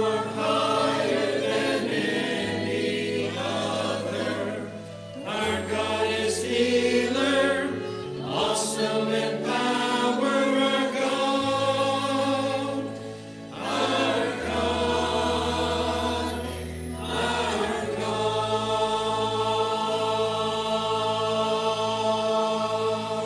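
Mixed church choir singing a contemporary worship song in parts over instrumental accompaniment with steady held bass notes, closing on a long sustained chord in the last few seconds.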